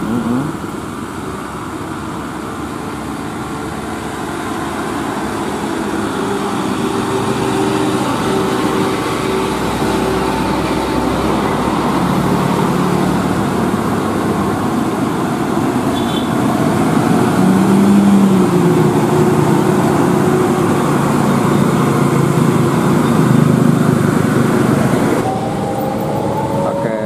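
Diesel engine of a Mitsubishi Fuso fuel tanker truck running as the truck drives past, over steady road traffic noise, growing louder through the middle and latter part. The sound changes abruptly about two seconds before the end.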